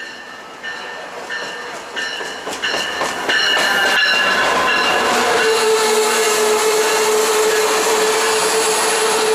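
Amtrak Piedmont diesel passenger train arriving at a station platform. Its locomotive bell rings steadily, about one and a half strikes a second, as it approaches. At about three seconds in it draws alongside much louder, and then the passing cars rumble with a steady tone held over them as the train slows.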